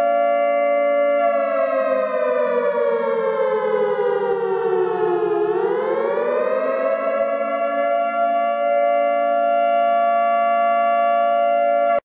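Nuke alarm ringtone: an air-raid warning siren sounding a loud, steady multi-tone wail. About a second in its pitch slowly falls, then swings back up by about halfway through and holds steady again, cutting off suddenly at the end.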